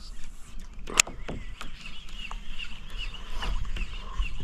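A bird chirping in a quick series of short high notes, about four a second, with a sharp click about a second in.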